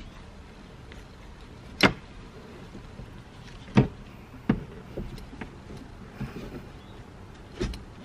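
Newly fitted S14 manual seatbelt in a Nissan 240SX being tried for retraction, pulled out and let reel back in. It gives a few sharp clicks and knocks, the loudest about two and four seconds in, then smaller ones.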